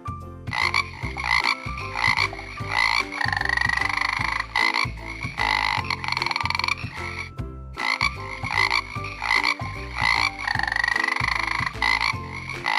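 Strawberry poison dart frog calling: a series of rapid buzzing trills, with a short break about seven and a half seconds in.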